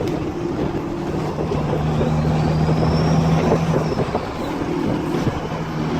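A motor running steadily, a low even hum over a rushing noise.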